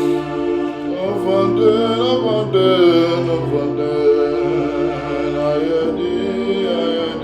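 Slow worship music with held, sustained chords, and a voice singing long, wavering notes over them for the first few seconds and again around the middle.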